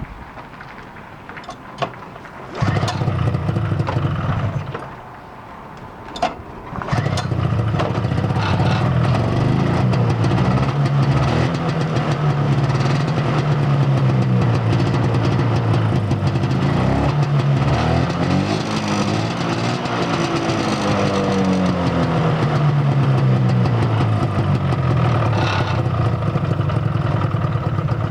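Polaris SS 340 snowmobile's two-stroke engine starting about three seconds in and dying after a couple of seconds. It then starts again and keeps running, its pitch rising and falling as it is revved.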